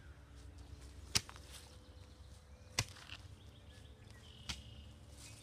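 Three sharp thuds about a second and a half apart: a long pole swung overhead and brought down onto a charred log in the ashes of a fire pit.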